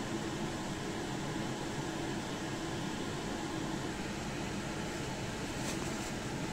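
Steady mechanical hum with an even hiss, the sound of a running fan or appliance in the room, with a few faint crinkles near the end as a spice packet is tipped over the plate.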